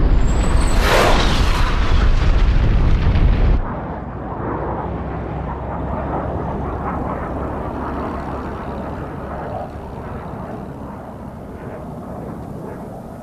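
Film sound effects of bombs exploding in an air raid: heavy blasts with a deep rumble and a fresh burst about a second in. It cuts off abruptly after three and a half seconds to a much quieter rumble that slowly dies away.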